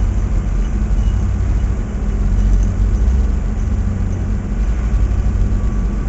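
Tracked excavator's diesel engine running at a steady idle, a constant deep drone.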